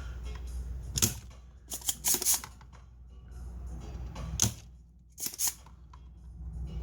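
Desoldering pump snapping as it clears solder from the MOSFET holes of an amplifier's power-supply board: sharp clicks at irregular intervals, about seven in all, some in quick pairs, over a steady low hum.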